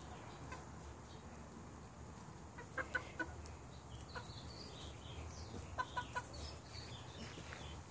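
Chickens clucking softly, with two quick runs of three short clucks about three and six seconds in, over a faint low hum.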